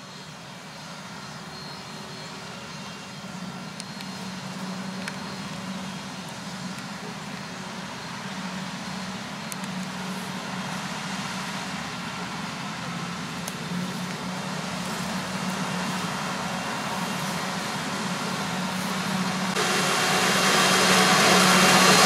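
Claas Jaguar 970 self-propelled forage harvester chopping maize, with a John Deere tractor and silage trailer running alongside: a steady engine hum under a broad rush of chopping and blowing. It grows gradually louder as the machines come closer, and jumps louder a couple of seconds before the end.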